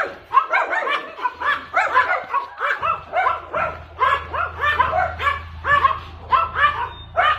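A dog barking repeatedly in a rapid run of short barks, about three a second, without a break.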